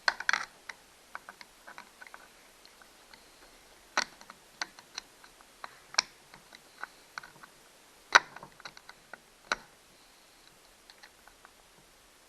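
Irregular light clicks and taps of hand tools and small parts on a Stihl 029 chainsaw being taken apart, with sharper knocks at the start and about four, six, eight and nine and a half seconds in.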